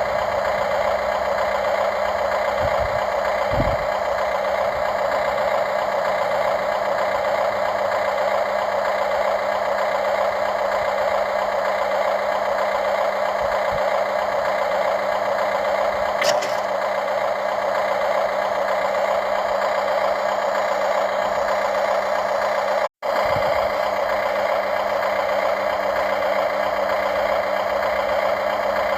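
Remote-controlled model excavator's motor and hydraulic pump running steadily with a whine and light rattle. The sound cuts out for an instant about two-thirds of the way through.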